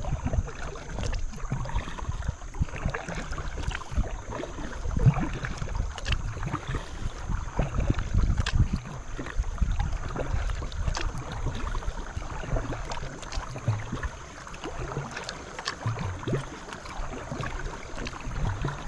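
Paddling a small boat on a creek: paddle strokes splashing in the water, with wind rumbling on the microphone and scattered light clicks and knocks.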